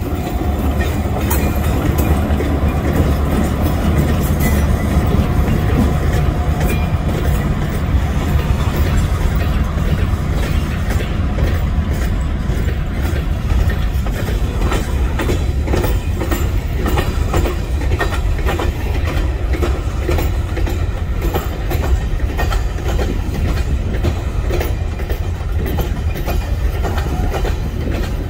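Freight train of covered hopper cars rolling past: a steady low rumble with the clickety-clack of steel wheels over the rail joints.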